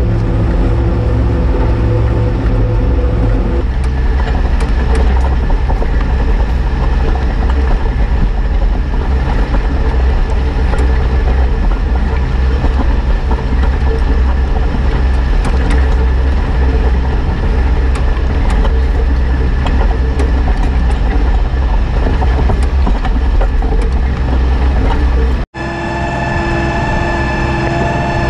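Case IH Puma CVX tractor running steadily under heavy low rumble and noise. The sound changes abruptly about four seconds in, and again near the end, where after a brief dropout a steady pitched whine takes over.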